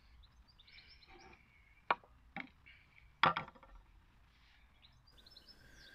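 A few light wooden clicks and knocks as a small wooden dowel and parts are handled on a wooden workbench, three in all, the loudest about three seconds in. Birds chirp faintly in the background.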